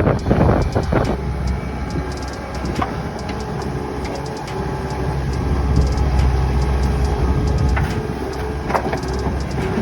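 Skid steer engine running steadily, with a few knocks near the start and again near the end.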